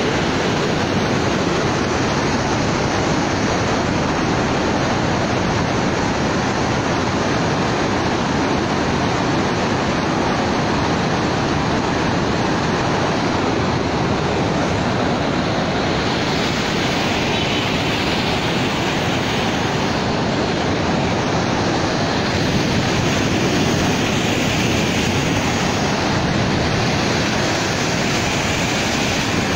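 Floodwater rushing: a swollen, muddy river churning white, a steady loud rush with no break.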